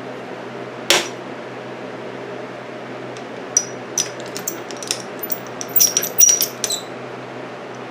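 Light metal-on-metal clinks from small tools or parts being handled: a sharp click about a second in, then a quick run of ringing clinks and taps over the second half.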